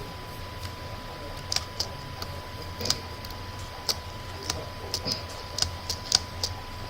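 About a dozen short, sharp clicks at irregular intervals, some in quick pairs, over a steady low hum and a faint, thin, steady high tone.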